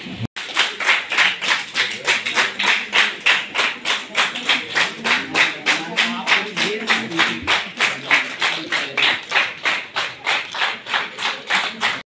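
Audience clapping together in a steady rhythm, about four claps a second.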